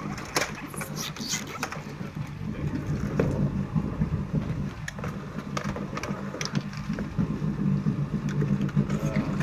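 An engine idling steadily with a low hum, over scattered clicks and knocks from the plastic hull of a folding Porta-Bote as it is pulled open.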